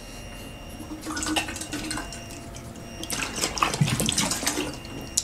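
Liquid sloshing and splashing in a plastic shaker bottle held in shaking hands as someone drinks from it, an irregular splashy clatter that gets busier about three seconds in.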